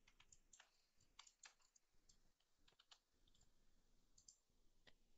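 Near silence with about a dozen faint, irregular clicks from computer mouse and keyboard use.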